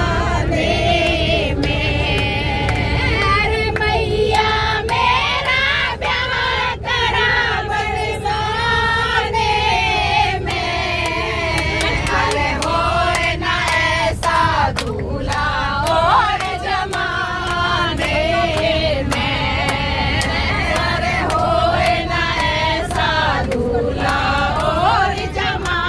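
A group of women singing a Hindi devotional wedding song (bhajan) together, with hand claps keeping time about once a second, over a steady low rumble from the moving bus.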